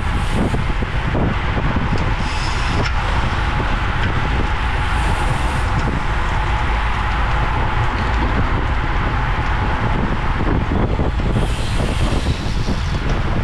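Steady wind rush buffeting the microphone of a bicycle's onboard camera at race speed, with a sharper hiss coming in briefly three times.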